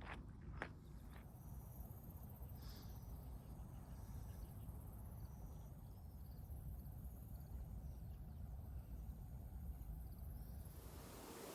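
Faint outdoor ambience: a thin, steady high-pitched insect trill over a low wind rumble.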